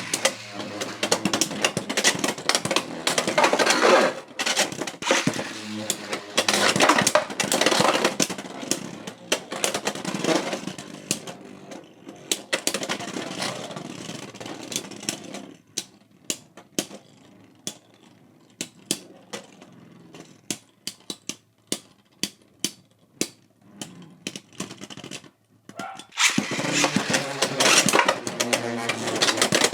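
Beyblade X tops battling in a stadium: about 15 s of rapid clattering collisions and grinding, then scattered single clicks as the spinning slows. About 26 s in, a fresh round of dense clashing starts.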